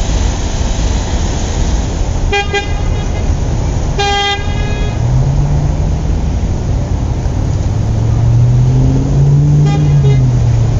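Busy street traffic: a steady rumble of passing cars, with brief car-horn toots about two seconds in and again at about four seconds, and a fainter toot near the end. A low hum swells in from about halfway.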